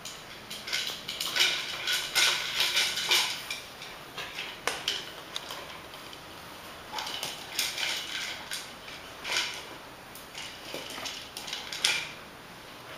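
Irregular bursts of clicking and clattering: a dog nosing and pushing a hard plastic toy about on a tiled floor.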